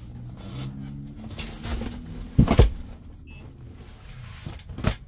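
Upholstered foam bed cushions in a campervan being lifted and dropped back onto the bed platform: rustling and soft knocks, with one loud thump about two and a half seconds in and a sharper knock near the end.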